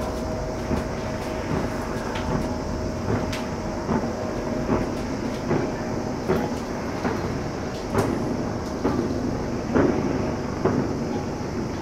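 Fireworks going off in the distance: a steady rumble with many sharp, irregular pops and cracks, a few each second.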